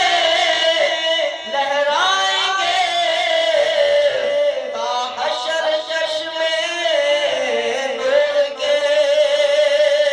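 A man singing an Urdu naat solo into a microphone, drawing out long, ornamented notes whose pitch wavers and slides.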